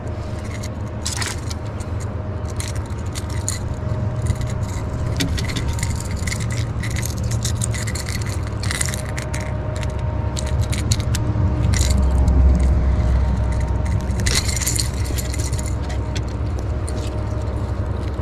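Scattered small metal clinks and jangles from the topwater lure and its hooks as a striped bass is unhooked by hand, over a continuous low rumble that swells about twelve seconds in.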